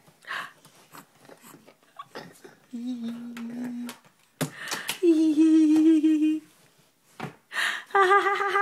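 Drawn-out cooing voice sounds: a low held hum about three seconds in, a louder wavering coo about five seconds in, and a higher wavering coo near the end.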